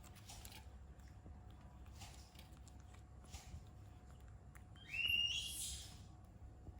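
A monkey gives one short, high-pitched squeal about five seconds in, after a few soft rustles.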